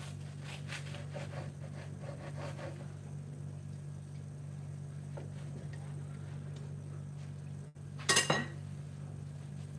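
Soft rustling and tapping as slices of toast are pressed down onto a stacked sandwich on a wooden board, then about eight seconds in a single short, loud clatter of a kitchen utensil on the worktop. A steady low hum runs underneath.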